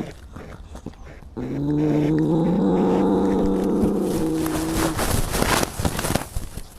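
A cat's long, low yowl, starting about a second and a half in and lasting about three and a half seconds, rising slightly in pitch. It is followed by a brief scuffling noise near the end.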